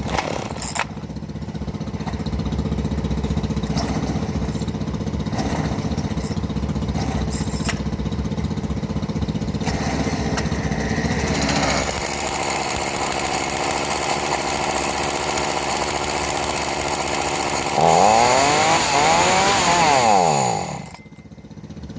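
Homelite two-stroke chainsaw running with no choke: idling steadily, then revving up about eleven seconds in. Near the end its revs swing up and down before it cuts out suddenly, which the owner puts down to the saw choking on its own smoke.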